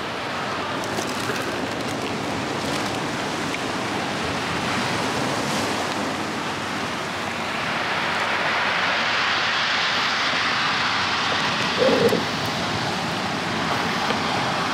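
Steady rush of ocean surf washing against the rocks of a jetty, mixed with wind, swelling louder about halfway through.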